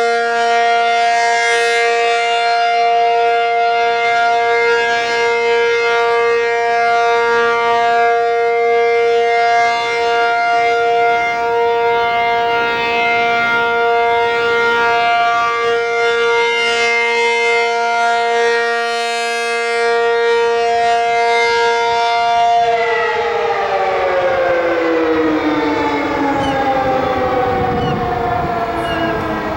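ACA P-50 (Penetrator-50) outdoor warning siren sounding its steady alert tone at full speed, then, about 23 seconds in, beginning to wind down with its pitch falling steadily.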